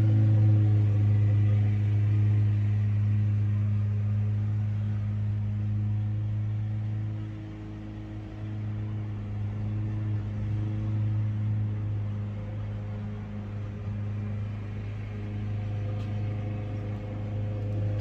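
A 2015 Ford Transit 350 van's engine idling with a steady low hum, dropping a little in level about seven seconds in.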